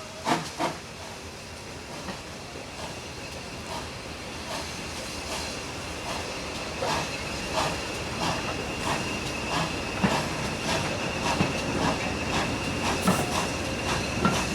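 GWR 57xx pannier tank steam locomotive pulling a train away from a station, growing steadily louder, with hissing and a run of beats and clicks that come quicker as it gathers speed. There are two sharp knocks just after the start, and a steady high tone joins about four seconds in.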